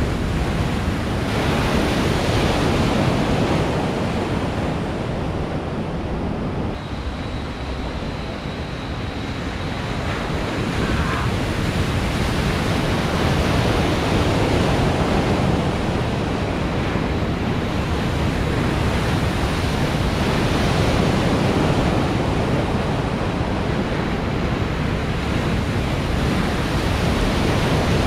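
Continuous rush of breaking water and churning whitewater in an artificial surf pool, swelling and easing, with wind buffeting the microphone.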